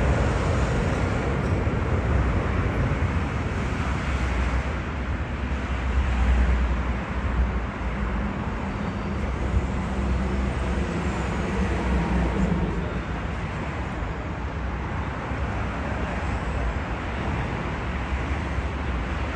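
Steady street-traffic rumble of passing road vehicles, with a low motor hum coming up in the middle.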